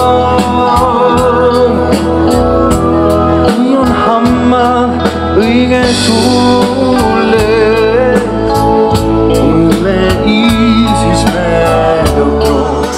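Band music with singing over a steady drumbeat.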